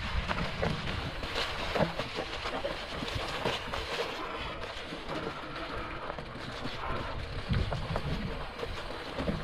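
Bikonit MD750 mid-drive electric bike riding over rough, grassy ground: a continuous rumble and rattle as the bike jolts over the bumps, with irregular knocks.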